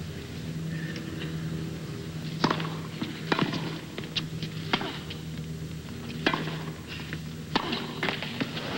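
Tennis ball being struck with rackets in a baseline rally: a string of sharp hits and bounces, irregularly spaced and starting a couple of seconds in, over a low steady hum.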